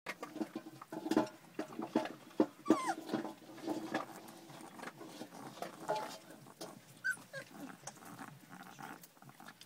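Puppies play-fighting and mouthing each other, giving short little growls and a few brief high squeaks, with scuffling and small knocks throughout. It is busiest in the first half and thins out after.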